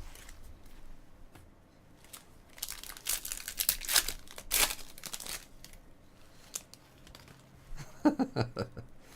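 Wrapper of a trading-card pack being torn open and crinkled by hand, with the loudest rustling coming in a cluster from about three to five and a half seconds in.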